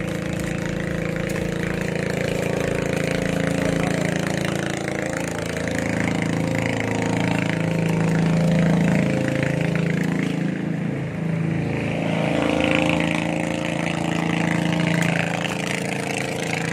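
An engine running, a steady low hum whose pitch wavers a little around the middle.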